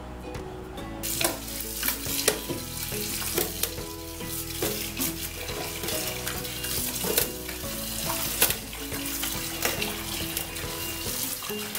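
Tap water running into a steel bowl while hands squeeze and knead a ball of flour dough under it, with irregular wet splashes and squelches, starting about a second in: the dough is being washed to rinse out the starch and leave gluten. Background music with plucked notes plays throughout.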